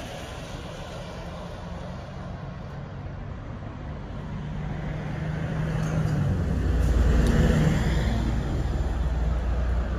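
Double-decker bus driving past over steady road traffic noise: its engine rumble builds up, is loudest about seven seconds in, then eases off.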